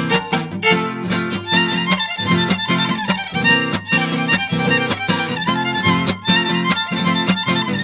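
Mariachi violins playing an instrumental break in a huapango over a rhythm of strummed guitars.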